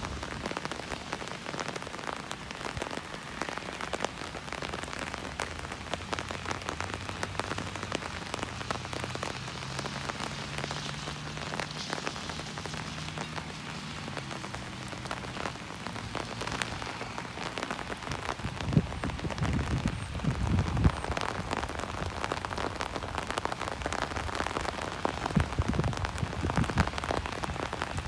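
Steady rain falling on wet pavement and grass, a dense even patter of drops. A faint low hum rises and fades in the middle, and a few low rumbles come in the last third.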